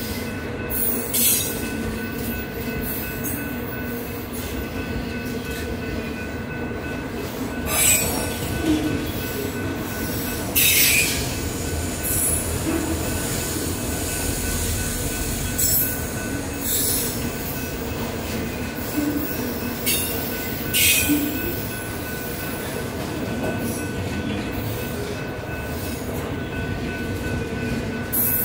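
Freight cars of a manifest train rolling past at track speed, a continuous rumble of wheels on rail broken several times by short, high-pitched wheel squeals.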